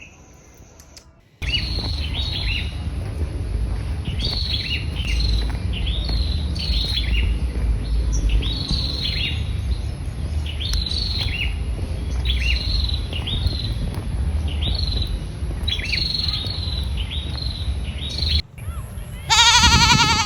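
A small bird repeats short chirps that slide downward, one or two a second, over a steady low rumble. Near the end an animal gives a loud, wavering bleat.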